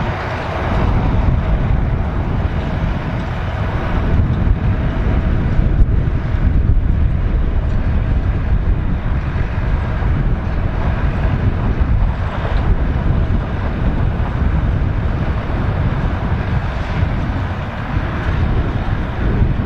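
Massey Ferguson 3070 tractor's diesel engine running steadily at work, a continuous low rumble, with wind buffeting the microphone.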